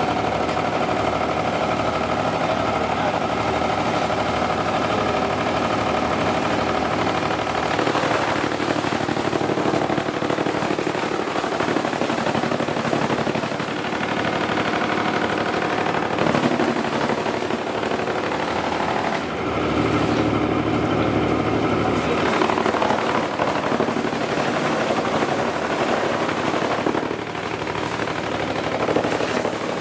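A machine's engine or motor running steadily with a rapid pulsing beat, shifting in pitch and load a couple of times.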